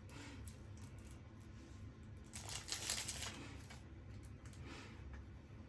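Clear plastic wrapping around a stack of trading cards crinkling and rustling as the cards are handled and taken out of it, with a louder spell of crackling about two and a half seconds in.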